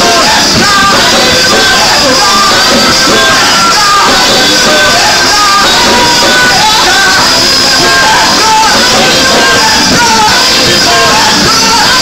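Live gospel worship song: a woman singing lead over a band with drums and keyboard, with backing singers, loud and continuous.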